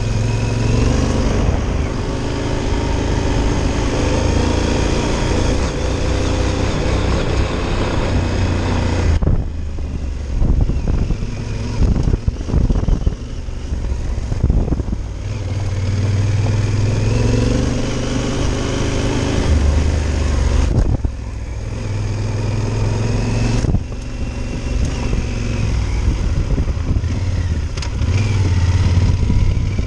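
Yamaha Super Tenere's parallel-twin engine running under load on a dirt road, its pitch repeatedly climbing as it accelerates. Around a third of the way in, and again about two-thirds in, the throttle eases and the engine note drops back.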